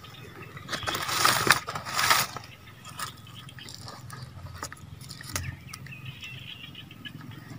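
Dry, charred banana-leaf wrapping crackling and rustling as hands handle it, with two louder bursts about one and two seconds in, then light scattered crackles.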